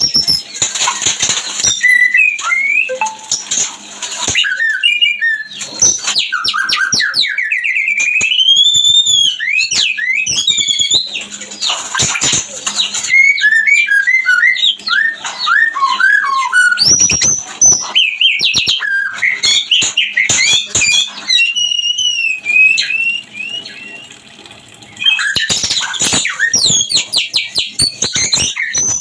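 White-rumped shama (murai batu) in breeding condition singing a loud, varied song of sliding whistles, rapid trills and harsh chattering notes, with a brief lull about two-thirds of the way through; a mating song of the kind played to stir caged birds into singing.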